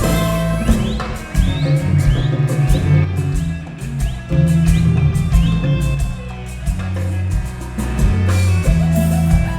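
Live Latin dance band playing an instrumental passage: bass and drums keep a steady beat under percussion, with short rising melodic slides repeated above.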